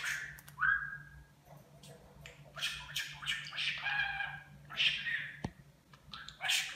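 Budgerigar chattering: a run of short warbled chirps in about five bursts, with small clicks between them.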